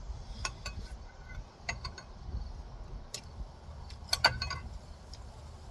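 Spoon clinking against a cereal bowl: a handful of scattered sharp clicks, the loudest a quick double clink about four seconds in, over a low background rumble.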